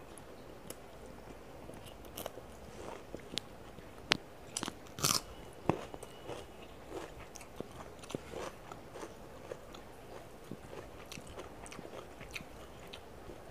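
A person eating rice and curry by hand into a close clip-on microphone: chewing with scattered crunchy bites and soft clicks, the sharpest a few seconds in, alongside fingers working the food on the plate.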